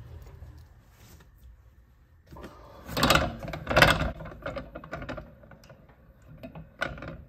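Rubber balloon tire turning on a motor-driven faceplate with a sanding drum grinding its sidewall true: a steady low hum, with a loud burst of grinding from about two to four seconds in and a couple of sharp clicks near the end.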